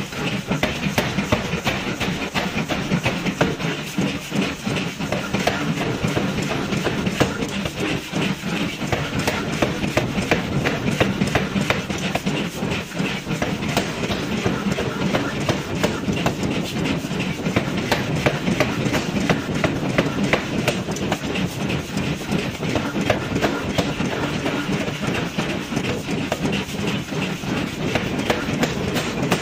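Power forging hammer striking a red-hot steel billet over and over, a fast, continuous run of heavy blows over a steady machine drone.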